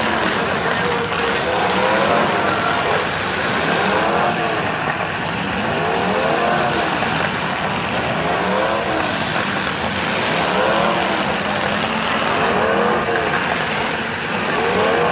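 Several demolition derby cars' engines revving hard, their pitch rising and falling over and over as the cars accelerate and back off, over the steady noise of a large crowd.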